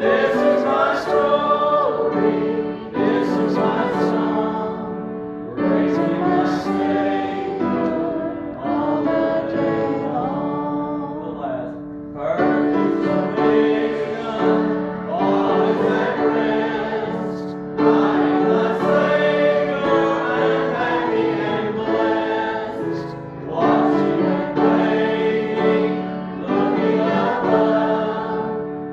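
A hymn sung by a group of voices over held accompaniment notes, in phrases with short breaks between lines.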